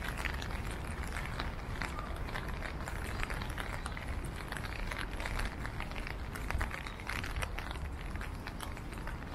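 Outdoor city street ambience on a rainy day: a steady low hum with many small, irregular taps and clicks over it.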